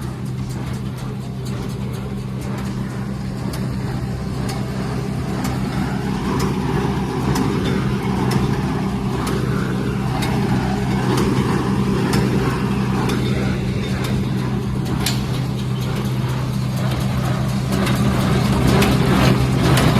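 Tractor engine running steadily while a John Deere square baler works hay, with the baler's mechanism clicking and clattering. The sound grows gradually louder.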